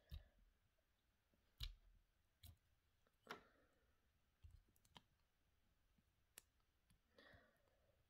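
Near silence broken by a few faint, scattered clicks and taps, about seven in all, as fingers work a hard plastic DTD squid jig and its hooks, with a soft rustle near the end.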